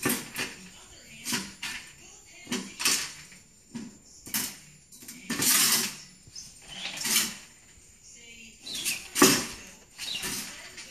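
Stainless steel dog bowl clanking and scraping as a small terrier eats from it and shoves it across the tiled floor against a cabinet. A string of separate knocks and short scrapes about a second apart, the loudest about nine seconds in.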